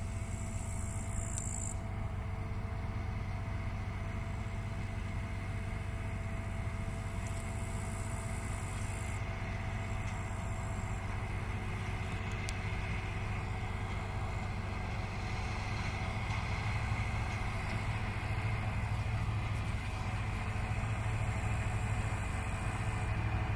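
Steady drone of a UES K-G-6 self-propelled forage harvester chopping grass for haylage, running together with the MTZ-1221 tractor that hauls the trailer beside it. The drone gets a little louder in the second half.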